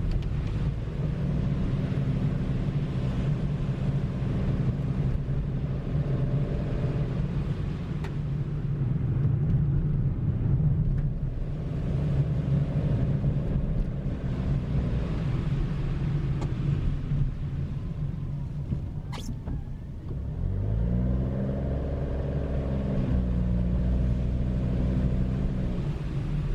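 Car driving along a road: steady engine note under low road rumble, the engine's pitch rising about twenty seconds in as it picks up speed, then holding.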